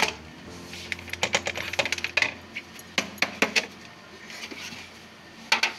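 Hands tapping and knocking on an upturned galvanized metal cake tin resting on a plate, a series of sharp metallic clicks and taps in several clusters, as the baked cake is loosened and the tin is lifted off.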